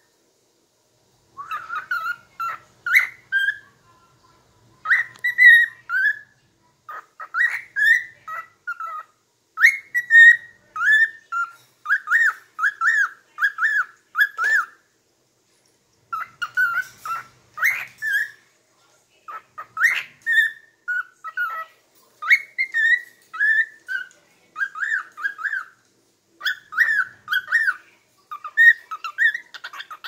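Cockatiel singing, a long run of quick whistled phrases of three to five short notes each, with a few short breaks. It is a chattering song picked up from hearing other birds.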